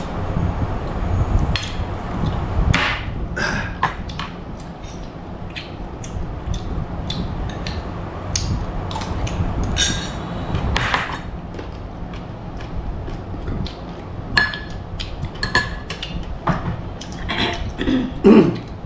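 Spoons clinking and tapping against porcelain bowls and glass at a meal: scattered sharp clinks, some ringing briefly, over a steady low hum.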